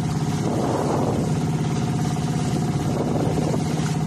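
Fishing boat's engine running steadily at a constant speed, a continuous even drone with no change in pitch.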